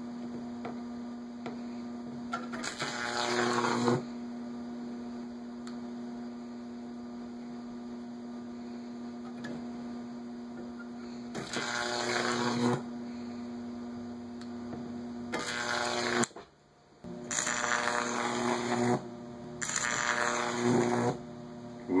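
Jacob's ladder powered by a microwave oven transformer: a steady high-voltage arc buzz at mains frequency. About five louder crackling spells break through it as the arc climbs the wires. The buzz cuts out for about a second past the middle, then resumes.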